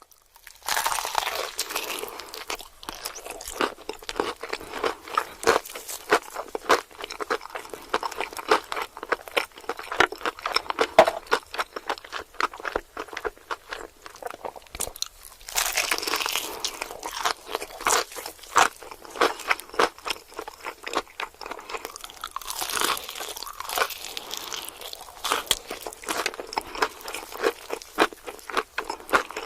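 Close-up chewing of crunchy food: continuous loud crunching and crackling bites and chews, pausing briefly a few times.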